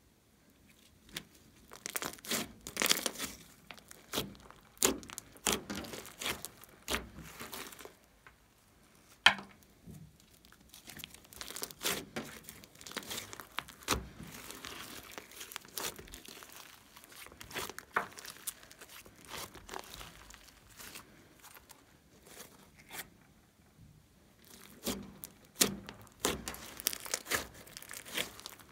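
Glossy slime being stretched, folded and pressed by hand, giving off irregular sticky crackles and small popping clicks in clusters, with a brief lull and then a sharp pop about nine seconds in.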